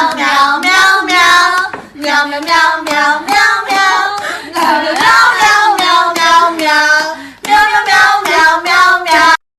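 A high-pitched voice singing in short phrases, cut off abruptly near the end.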